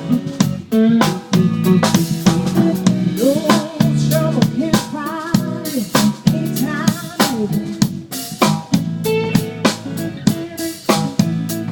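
Live band playing at a sound check: a drum kit keeps a steady beat of snare and bass-drum hits under sustained low instrument notes, with a bending melodic line over the top.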